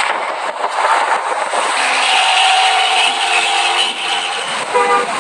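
Hino AK 3HR bus engine running loud through a racing-style 'ngorok' growling exhaust, with a rattly edge.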